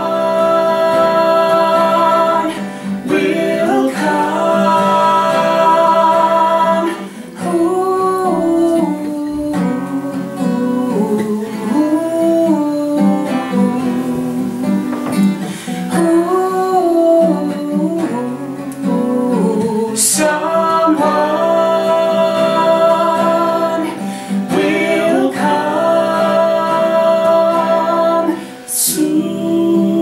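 Steel-string acoustic guitar strummed steadily under a man's and a woman's voices singing a slow melody together, with long held notes.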